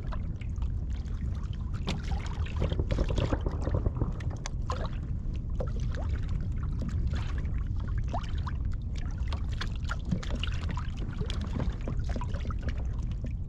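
Small waves lapping and splashing against a kayak hull: irregular splashes, drips and gurgles over a steady low rumble of water.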